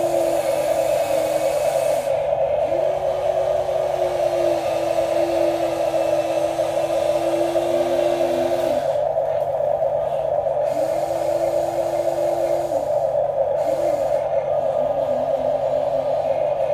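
Small electric motors of radio-controlled toy construction vehicles whirring steadily. A second motor's whine comes and goes in stretches of a few seconds as functions are switched on and off.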